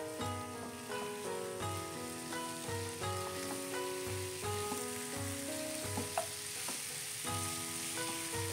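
Chicken pieces, carrots and mushrooms sizzling in oil in a wok as they are stirred and turned with a wooden spatula, with a couple of spatula knocks a little after the middle. Background music with a steady beat plays throughout.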